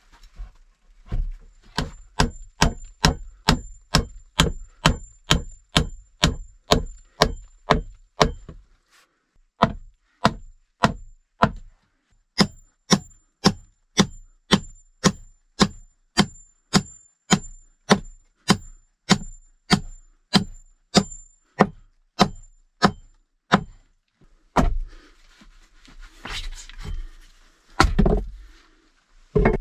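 A nail driven into a wooden board with the back of a hatchet: steady hammer blows, about two to three a second, each with a short metallic ring, with a brief pause about a third of the way in. Near the end the blows give way to a few irregular, louder knocks.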